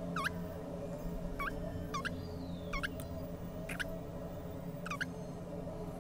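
A bird chirping repeatedly, about six short high calls roughly a second apart, each dropping sharply in pitch, over a steady low background hum.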